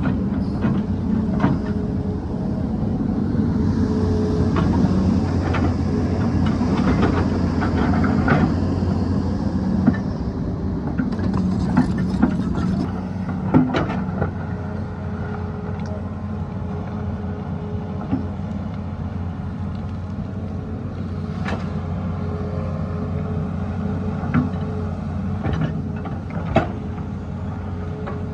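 Excavator diesel engine running under load with its hydraulics working, and scattered knocks and clatter of rock against the bucket. The engine eases to a lower, steadier run about halfway through.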